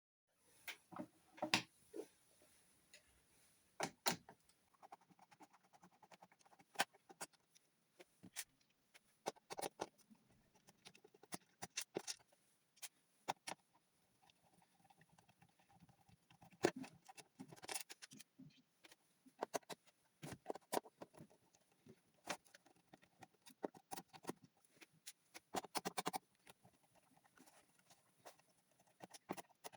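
Irregular small clicks, taps and knocks of hands and tools working on an opened laptop, scattered unevenly with short pauses between them.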